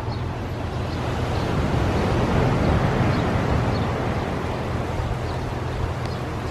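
Ocean waves crashing on the beach: a steady wash of surf that swells about two to three seconds in and eases off again, over a low rumble.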